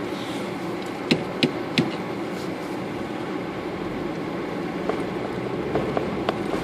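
Vehicle running over a rough, unpaved dirt road: steady engine and road noise with sharp knocks and clatters from the jolts, three close together in the first two seconds and several more in the last two.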